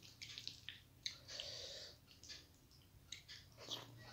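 Faint hand-eating sounds: fingers mixing rice with begun bharta (mashed aubergine, tomato and potato) on a plate, with chewing, heard as a scatter of short clicks and brief rustles.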